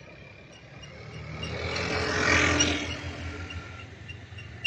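A vehicle passing by, its noise swelling to a peak about halfway through and then fading away.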